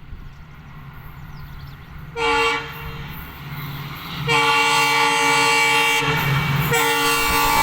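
Indian Railways train horn sounding as the train approaches: a short toot, then a long blast, then another blast starting near the end, over a low train rumble that grows louder.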